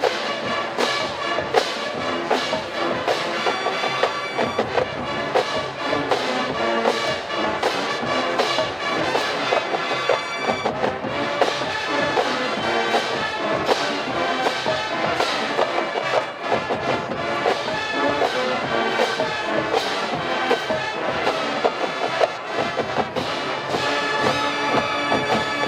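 College marching band playing a pop medley arrangement: brass carrying the tune over a steady drum beat.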